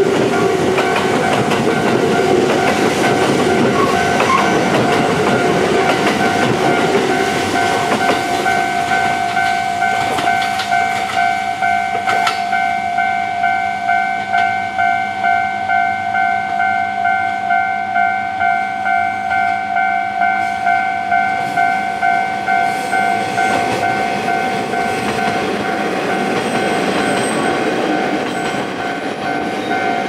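Japanese level crossing warning bell ringing on and on in an even pulsing rhythm. For the first several seconds it sounds over the wheel noise and clatter of a Kintetsu train passing close by.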